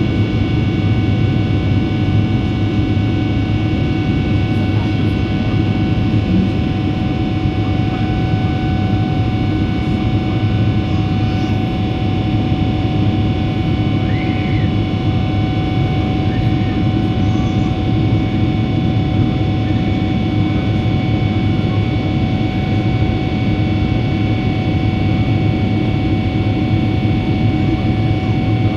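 Boeing 777 jet engines heard from inside the passenger cabin: a steady, loud noise heaviest in the low end, with several fixed whining tones held over it.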